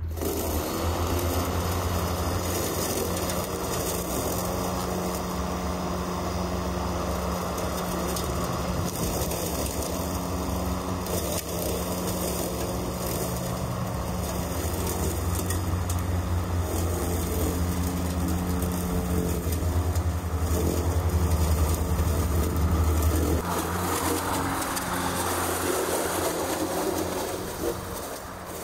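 Mowrator S1 battery-electric remote-controlled lawn mower running through long grass, a steady motor hum under the noise of the grass being cut. A low rumble drops out suddenly about 23 seconds in while the cutting noise carries on.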